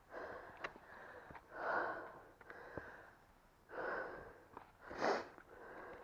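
A hiker breathing hard from climbing steep stone steps: three deep breaths about a second or two apart. Faint taps of a trekking pole tip on rock fall between them.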